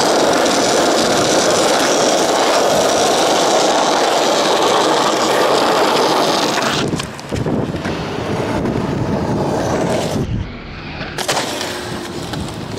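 Skateboard wheels rolling on rough pavement as a steady rush, then about seven seconds in a few sharp knocks as the board is popped and lands. The rolling then carries on more quietly with scattered clicks.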